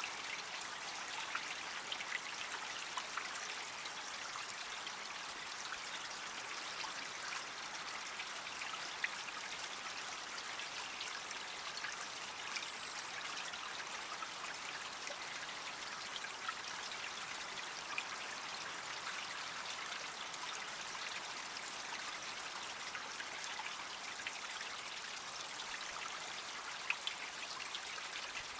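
Creek water trickling steadily, with small drips and plips scattered through it.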